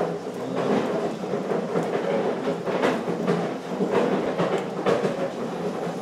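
Continuous rumbling clatter of machinery, with sharp knocks every second or so as iron rods stir and shift the charcoal in a smelting fire.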